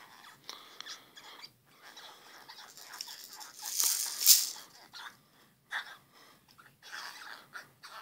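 Baby gnawing and sucking on a rubber giraffe teether: small wet mouthing and clicking noises, with a louder rush of breathy noise about four seconds in.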